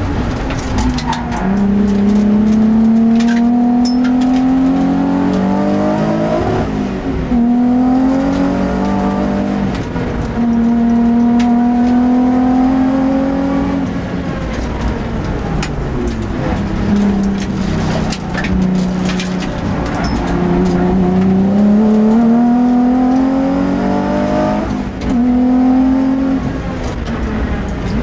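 Twin-turbo race car engine under hard acceleration on track, pitch climbing steadily through each gear and dropping sharply at the shifts, about five times. A high whistle rides over the engine during the hardest pulls.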